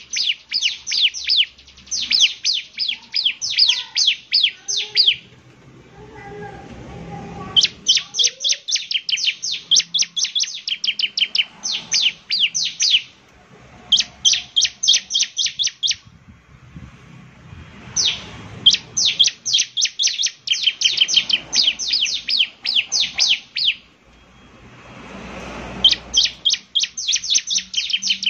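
Bar-winged prinia (ciblek) singing its 'semi' song: rapid runs of sharp, high chirping notes, about ten a second, in bursts of a few seconds with short pauses between.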